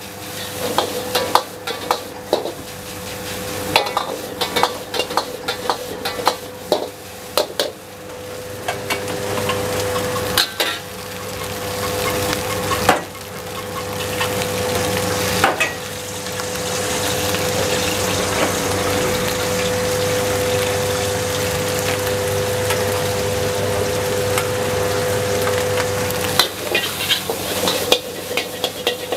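Hainanese fried rice stir-fried in a wok over a high gas flame: a metal spatula scraping and clanking against the wok over the sizzle of frying, with a steady hum underneath. About halfway through, the sizzle swells into a loud, steady hiss for some ten seconds before the scraping and clanking return.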